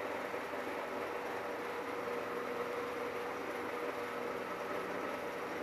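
Electric fan running steadily: an even whooshing hiss with a faint steady hum.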